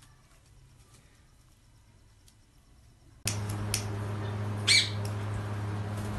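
Near silence with faint ticks, then about three seconds in a steady low hum cuts in, and a caged parrot gives one short, sharp squawk.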